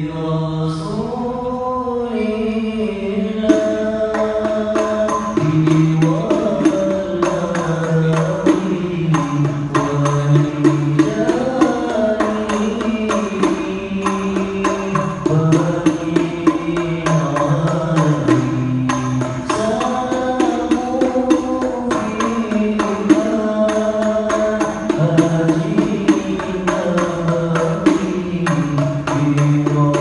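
Male voices singing a chanted devotional song, with frame drums beating a fast, even rhythm that comes in about three and a half seconds in.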